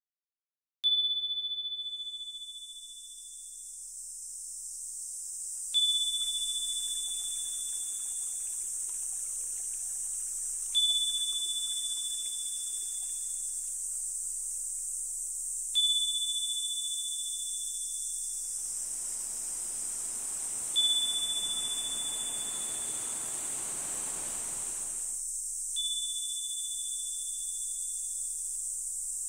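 A single high chime-like tone struck once about every five seconds, six times in all, each ringing out for two to three seconds over a steady high hiss. A soft whoosh swells in the second half and stops after about six seconds.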